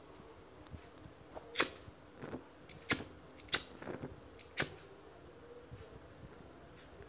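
Hand-held cigarette lighter struck four times in quick succession, each strike a sharp click, before the flame catches to light a cigarette.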